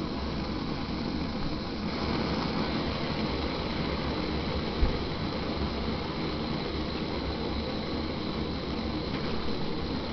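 GoSystem GS2100 Trail Classic propane-butane canister stove burning at full power with a steady hiss, just lit and heating a pot of water. There is one brief low thump about five seconds in.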